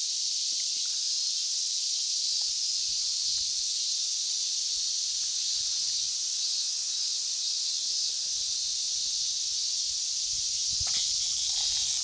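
Chorus of male cicadas singing their mating call, a steady high-pitched drone that does not let up. A few faint rustles and a small knock near the end.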